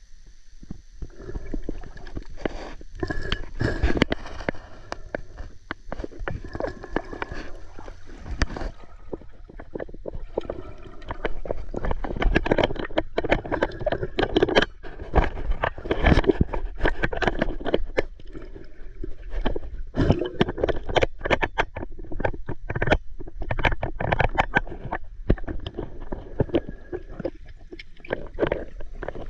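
Muffled underwater sound picked up by a camera submerged in a water-filled cave: irregular bubbling and gurgling with many short knocks and scrapes as the camera moves through the passage. A faint steady high whine stops about nine seconds in.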